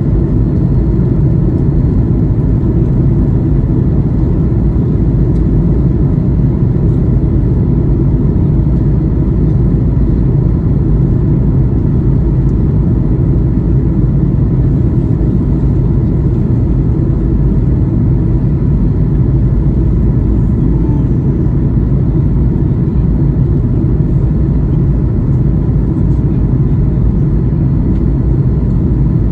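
Steady low drone inside the cabin of a Boeing 737 MAX 8 in flight: its CFM LEAP-1B engines and the airflow over the fuselage, even and unchanging throughout.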